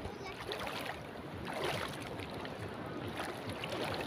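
Water sloshing and lightly splashing as someone wades through shallow tide-pool water, with wind on the microphone.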